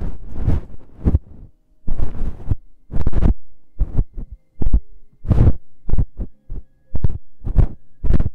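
Feather-tipped ear pick brushing and rubbing against a binaural microphone's ear, in short irregular strokes about one a second, each a brief rustle with a heavy low thud close to the microphone.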